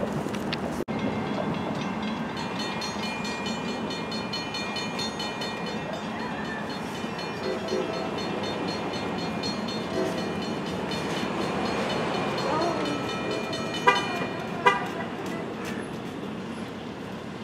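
Distant train horn sounding as a train approaches, over a steady low background rumble, with two short sharp sounds near the end.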